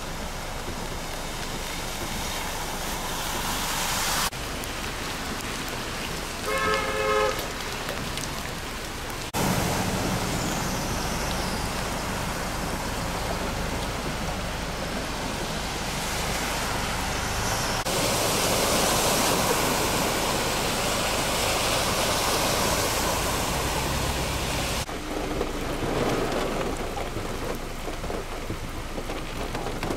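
Heavy rain and splashing floodwater as vehicles drive slowly through flooded streets, the noise changing abruptly several times. A car horn honks briefly about seven seconds in.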